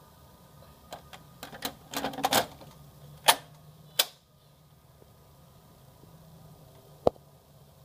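Hard plastic clicks and rattles from a toner cartridge and the cartridge drawer of an HP Color LaserJet CP1025 being handled: a quick flurry, then two sharp clacks about a second apart, and one more click near the end.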